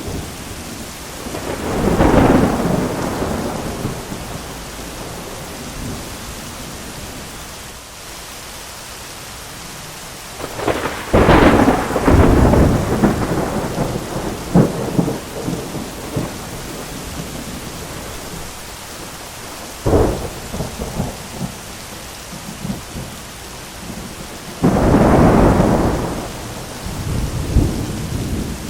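Thunderstorm with steady rain and repeated thunder: a rolling peal about two seconds in, a sharp close crack at about eleven seconds that rumbles on for several seconds, a shorter crack near twenty seconds, and a loud peal near the end that rolls away.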